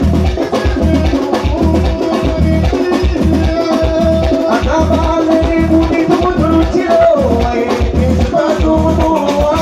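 Live paranda band music: a singer's voice over electric guitar and keyboards, with a steady, heavy low beat.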